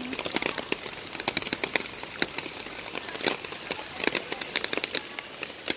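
Heavy rain falling, an even hiss with many separate drops and drips striking hard surfaces close by at irregular moments.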